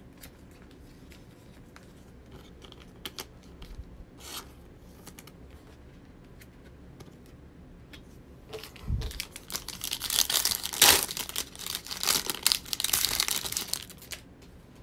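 A foil trading-card pack of 2020 Select football being torn open, its wrapper tearing and crinkling loudly for several seconds in the second half. Before that, only a few soft clicks of cards being handled.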